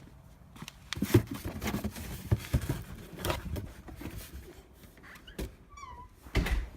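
Irregular knocks and clatter of objects being handled, with a short falling squeak about six seconds in.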